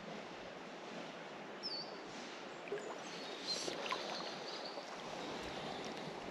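River water flowing steadily: an even rush of running water, with a few faint high chirps and light clicks over it.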